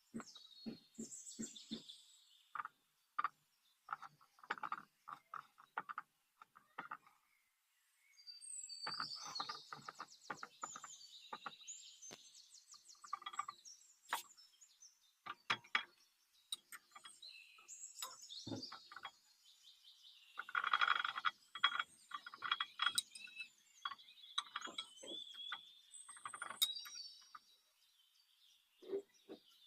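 Birds chirping and twittering, with scattered short clicks and knocks throughout.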